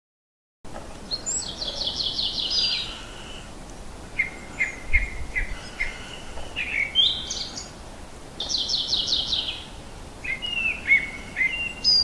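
Icterine warbler singing a varied song. Fast runs of repeated high notes alternate with rows of lower repeated notes and short rising notes, starting about half a second in.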